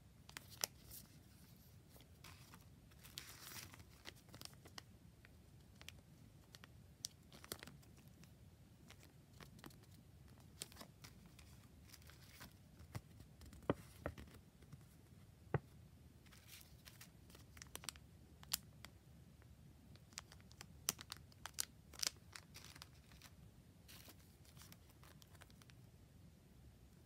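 Faint rustling and crinkling of clear plastic sleeves and paper as hands handle sticker packs and paper sheets, with scattered soft clicks and taps.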